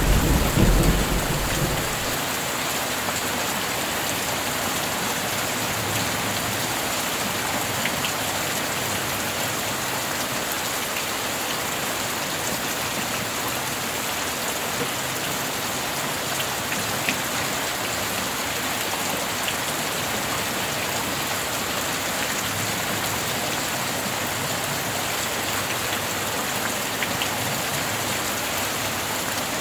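Steady heavy rain, an even hiss with a few distinct drops, with the tail of a thunder rumble dying away in the first two seconds.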